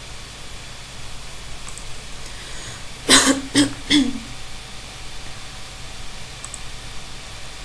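A woman clears her throat in three quick coughs about three seconds in, over a faint steady hiss.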